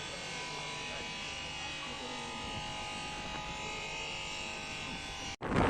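Steady insect buzzing made of several held tones, unbroken. Near the end it cuts off abruptly and gives way to louder wind rushing over the microphone.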